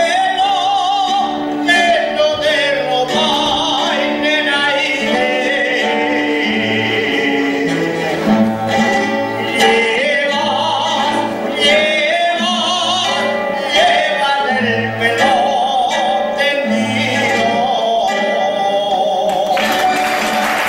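A male jota singer sings an Aragonese jota, his voice wavering with vibrato, over guitar accompaniment. Applause breaks out near the end as the song finishes.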